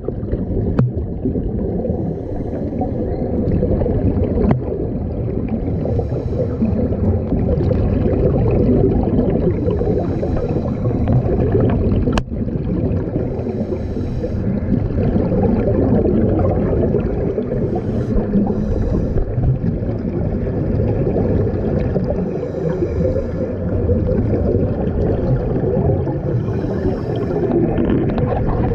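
Underwater sound of scuba divers breathing through their regulators: a steady rumbling gurgle of exhaled bubbles, with a short hiss every four seconds or so. There is a single sharp click about twelve seconds in.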